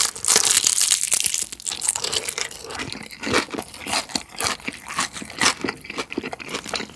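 Close-up crunching of crispy battered fried chicken dressed with minced garlic sauce: a loud bite through the crust in the first second and a half, then steady chewing with dense crackling crunches.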